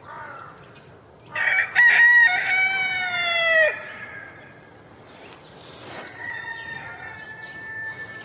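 A rooster crowing once, a loud call of about two and a half seconds whose pitch drops at the end. Fainter, shorter calls come before and after it.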